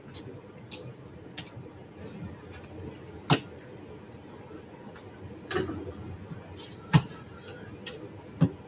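Light clicks and a few sharp taps of craft tools and card parts being handled and set down on a cutting mat, with four louder knocks spread through the middle and end.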